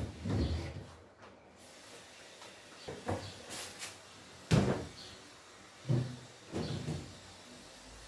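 A handful of knocks and clunks as refrigerator shelves, drawers and containers are taken out and set down. There is a brief sliding scrape just before the loudest clunk, about halfway through.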